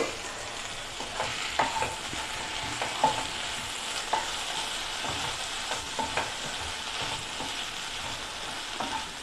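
Diced chayote frying in a nonstick pan, sizzling steadily while a spatula stirs and turns the soft pieces, with irregular light knocks and scrapes of the spatula against the pan.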